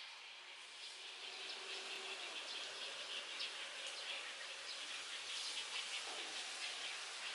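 A steady high-pitched chorus of insects with many short chirps flickering through it, growing a little louder about a second or two in.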